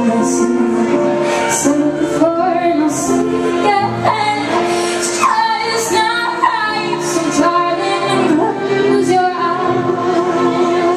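Live band playing a song with a woman singing the lead vocal over held instrumental notes and regular cymbal hits.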